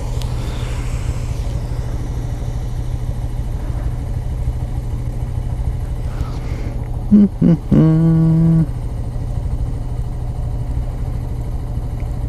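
2017 Honda Grom's small single-cylinder engine idling steadily while stopped at a traffic light. About seven seconds in, a loud pitched tone sounds: two short blips, then one held for about a second.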